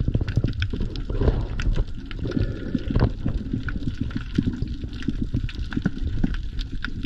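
Underwater ambience as picked up by a camera submerged in the sea: a constant low, muffled rumble of water movement with frequent short clicks and crackles scattered through it.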